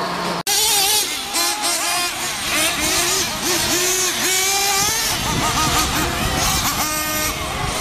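Several nitro-engined 1/8-scale RC truggies racing, their small engines revving up and down in overlapping rising and falling whines. There is a brief break in the sound about half a second in.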